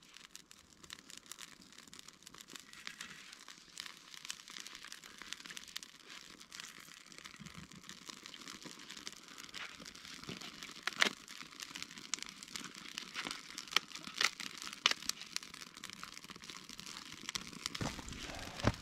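Crinkling and rustling handling sounds, with scattered sharp cracks that grow louder and more frequent in the second half.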